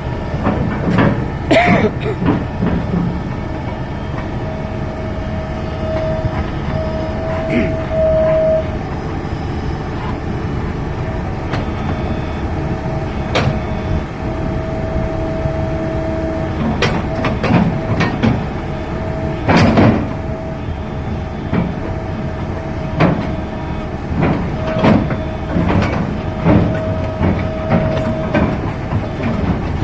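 Heavy diesel machinery running with a steady low rumble. A thin whining tone comes and goes, and scattered metallic knocks and clanks sound, the loudest about twenty seconds in.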